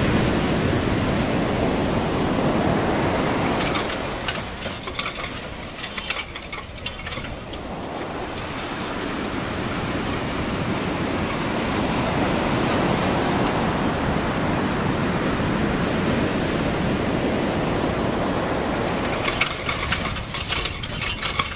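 Surf breaking and rushing up a sandy beach around a grounded sailing yacht. The roar of water is loud at first, eases for a few seconds, then builds again, with a crackle of foam near the end.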